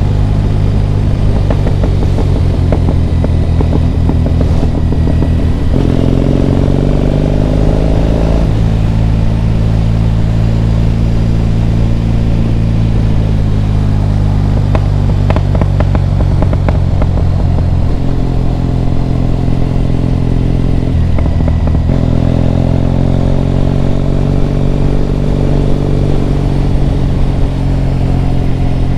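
Triumph Bonneville T100's parallel-twin engine running on the road, mostly at a steady cruise. Its pitch rises under acceleration about a fifth of the way in and again past the middle, dropping back between as it changes gear.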